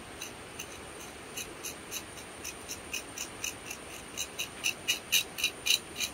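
Insects droning steadily at a high pitch, with a series of short high squeaks, about four a second, growing louder toward the end.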